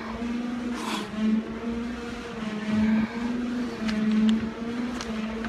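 Heavy breathing through a firefighter's SCBA facepiece during a hard stair climb, with short airy puffs from the mask, over a steady, rhythmically pulsing hum and a few light clicks.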